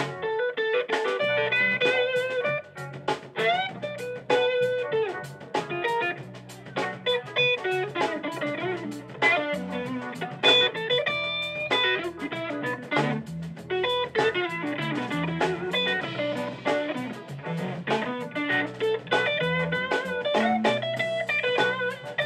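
Live blues band playing an instrumental break: an electric guitar lead with bending notes over bass guitar and drums.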